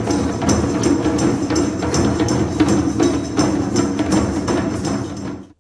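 Intro music of hand percussion with a wood-block-like click on a quick, steady beat over sustained tones, stopping abruptly near the end.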